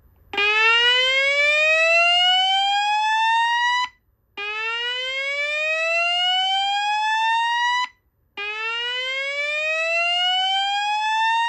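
System Sensor SPSR fire alarm speaker strobe sounding a whoop evacuation tone: three rising whoops, each about three and a half seconds long with a short break between. It is the alert tone ahead of a voice evacuation message.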